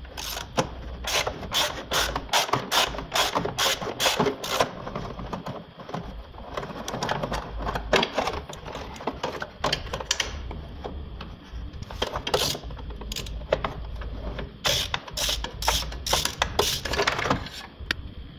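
Hand ratchet clicking in quick runs of strokes, several bursts with short pauses between them, as the E-Torx bolts holding the exhaust pipe to the manifold are loosened.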